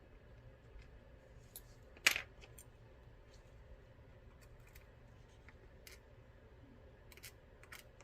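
Small metal lock parts and tools being handled: one sharp click about two seconds in, then a few light ticks near the end, over a faint low hum.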